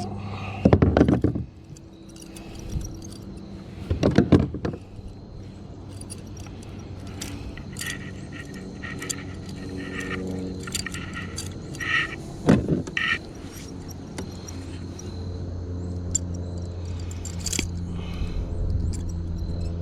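Fishing reel being cranked with a steady grinding hum, the squeak and grind of a worn reel. A few sharp clattering knocks and rattles break in, about a second in, around four seconds in and again near the middle.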